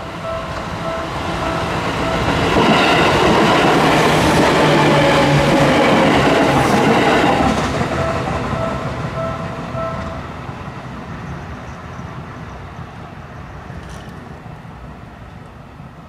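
Japanese level-crossing alarm bell ringing while a Seibu 101-series electric train passes with wheels clattering over the rails. The train is loudest from about three to eight seconds in and then fades. The bell stops about ten seconds in.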